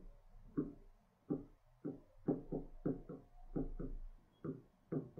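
A pen writing on a board: a run of short, uneven taps and strokes, a few a second, as a word is written out by hand.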